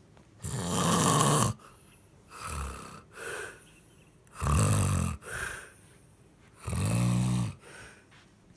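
A person snoring loudly: three long, loud snores about three seconds apart, with shorter, quieter breaths between them.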